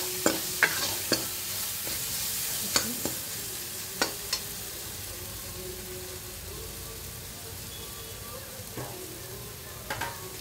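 Chopped tomatoes, green chillies and spices sizzling as they sauté in oil in a kadai, the sizzle slowly dying down. A steel ladle scrapes and clicks against the pan several times in the first half while stirring, and again briefly near the end.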